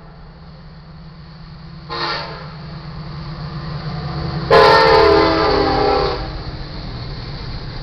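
Air horn of a BNSF EMD SD70ACe diesel locomotive at a grade crossing: a short blast about two seconds in, then a longer, louder blast of about a second and a half, the close of the crossing horn signal. Underneath, the low rumble of the approaching locomotive and train grows steadily.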